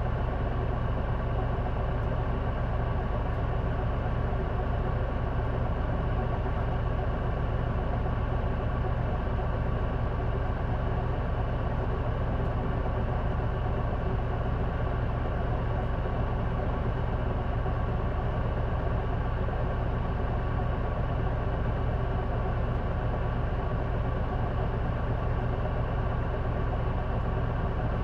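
J-Bus city bus diesel engine running steadily, heard from inside the passenger cabin, with no change in pitch or loudness.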